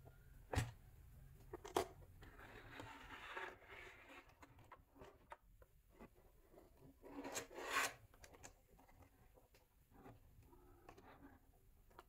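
Plastic toy bus being handled: two sharp clicks near the start, then rubbing and rustling of the plastic body against hands and the table, loudest about seven to eight seconds in.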